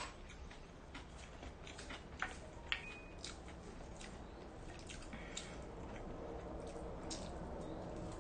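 Quiet eating sounds: a wooden spoon stirring and scooping rice in a glass bowl and soft chewing, with a few faint clicks and taps.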